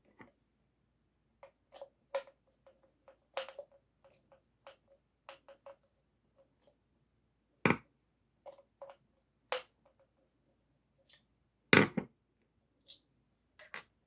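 Scattered plastic clicks and taps as an Amana washing machine's drain pump is handled and fitted together by hand, with two louder knocks about eight and twelve seconds in.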